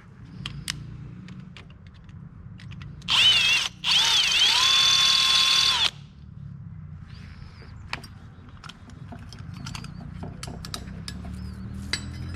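Power drill drilling out a rivet: a short burst, a brief stop, then a run of about two seconds, its motor whine wavering in pitch before holding steady. Scattered clicks and taps of tools on metal come before and after it.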